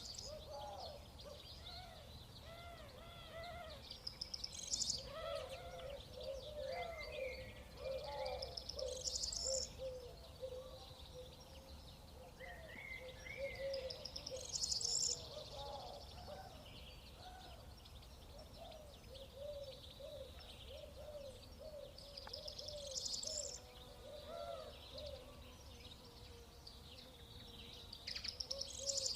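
Birdsong from several birds: a steady chatter of short, arching low notes throughout, over which a song phrase climbs to a high note about every five seconds.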